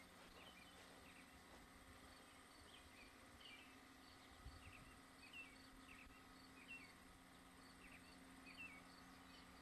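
Near silence: faint birds chirping, short repeated chirps about every half second to a second, over a faint steady hum.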